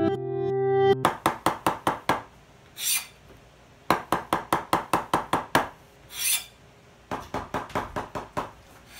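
Synth music ends about a second in, then a kitchen knife chops quickly on a plastic cutting board in three rapid runs, with a short scrape between runs.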